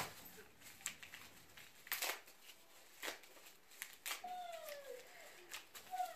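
Small clear plastic bag crinkling and rustling in the hands as a pin is worked out of it, in several sharp crackles. About four seconds in, and again near the end, a short high cry slides down in pitch.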